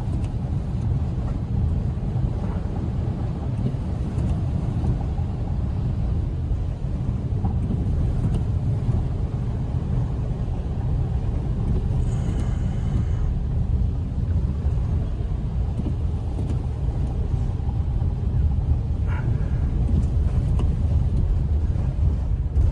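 Car driving, heard from inside the cabin: a steady low rumble of engine and tyres on a wet, slushy road.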